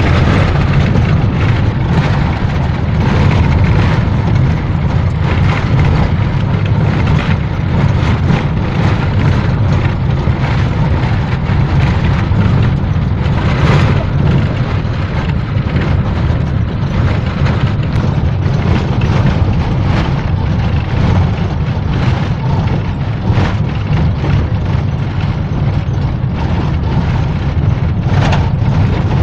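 Minibus running along a rural road, heard from inside the passenger cabin: a loud, steady low rumble of engine and road noise with frequent short knocks and rattles.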